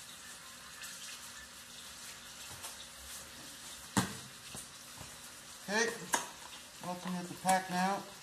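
A low steady hiss, with a single sharp knock about four seconds in, then a voice speaking briefly twice near the end.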